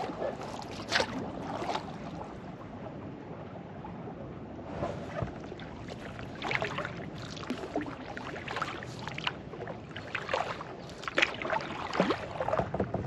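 Lake water lapping in small, irregular splashes over a soft steady hiss.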